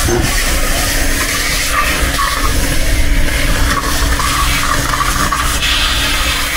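Canister shop vacuum running steadily with a constant motor hum, its nozzle drawn along the floor.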